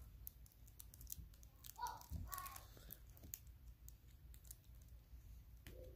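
Near silence with faint handling noise from baseball trading cards being slid and flipped through: scattered soft clicks and flicks, with a brief soft voice about two seconds in.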